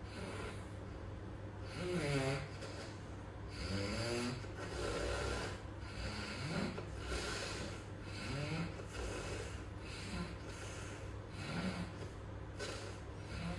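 A sleeping man snoring, a rough snore or snort every second or so, over a steady low hum.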